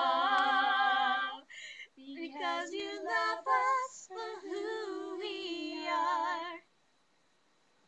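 Three girls singing together unaccompanied: a long held note, a short pause for breath, then a few more sung phrases that stop about six and a half seconds in.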